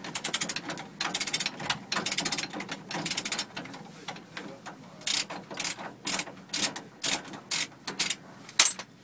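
A ratchet wrench with a 32 mm socket clicking as it is worked back and forth on the hub nut of an AL-KO trailer brake drum to undo it. There are fast runs of clicks for the first few seconds, then single sharp clicks about twice a second.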